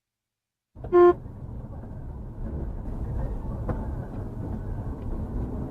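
A single short car horn toot about a second in, followed by steady low traffic and engine rumble.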